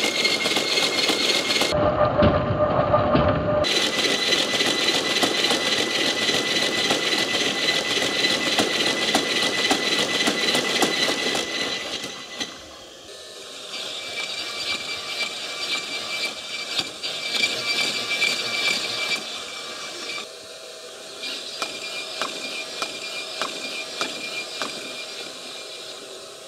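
Honda ASIMO humanoid robot's electric joint motors whirring as it walks and runs, a steady high whine over hiss. The sound drops in level about twelve seconds in, with light taps scattered through the later part.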